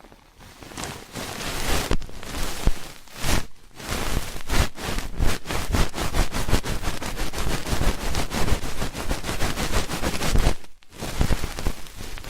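Close-miked ear-cleaning ASMR: an ear pick scratching and rubbing in quick, repeated strokes, with brief pauses about three and a half seconds in and near the end.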